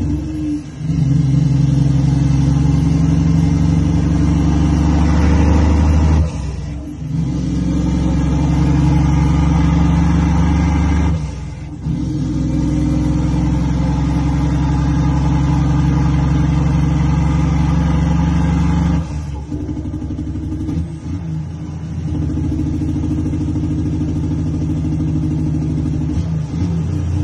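Cummins ISX inline-six diesel in an International Paystar dump truck pulling under load, the engine sound dropping briefly at each gear change about four times as the driver works through the 18-speed manual gearbox. After the last shift, a little over two-thirds of the way in, it runs a bit quieter.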